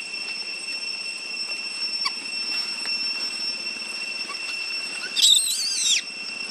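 A young long-tailed macaque gives one loud, high, wavering scream about five seconds in, lasting under a second, over a steady high-pitched drone.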